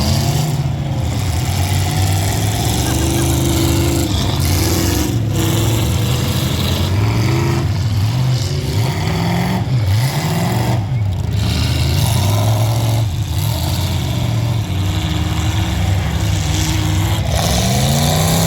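Several demolition-derby trucks' engines running and revving together, their pitch rising and falling again and again over a steady loud drone.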